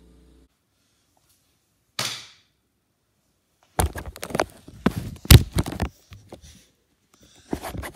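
Handling noise from the camera being swung about: a short rustle about two seconds in, then a loud, fast run of knocks and thumps lasting about two seconds, and more clatter near the end.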